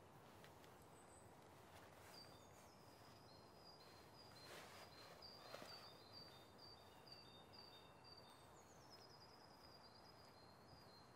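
Faint woodland ambience with birds singing in the distance: a long run of short, evenly spaced high chirps, then a quick descending trill about three-quarters of the way through.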